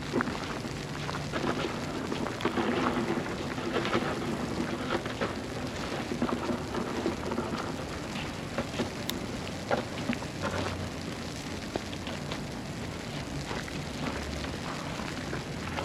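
Street ambience in a snowstorm: a steady, dense crackling hiss with many short sharp ticks, over a low hum.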